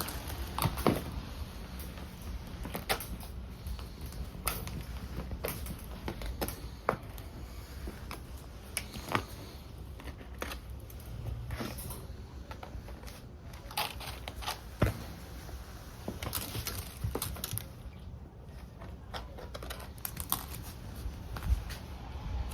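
Irregular light clicks and taps, one every second or two, over a steady low rumble.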